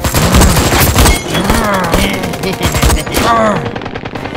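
Rapid automatic gunfire, shot after shot in dense bursts, with music underneath.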